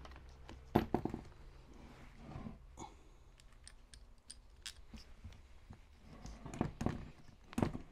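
Light clicks and knocks of small metal hardware being handled as a nut is spun loosely onto a bolt. There are louder knocks about a second in and near the end.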